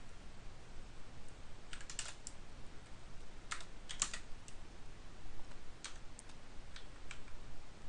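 Computer keyboard keystrokes in short, scattered clusters, with pauses of a second or so between them, as numbers are typed into a software field.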